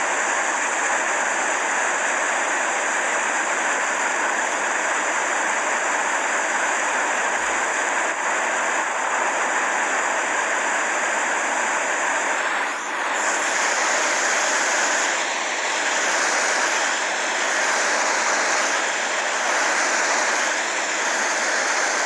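Steady rushing water. About thirteen seconds in it dips briefly, then swells and eases roughly every second and a half.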